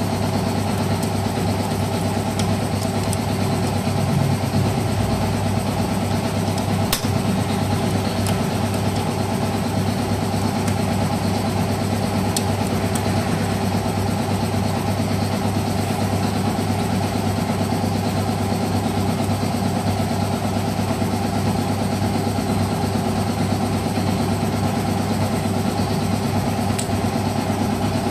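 An engine idling steadily at an even, unchanging speed.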